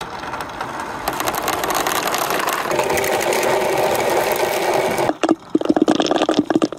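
Balls rolling in a line down a rain-gutter marble run: a steady rattling rumble of many small clicks, growing fuller about halfway through. After about five seconds it breaks into a quick series of separate clacks and knocks as the balls strike each other and the track.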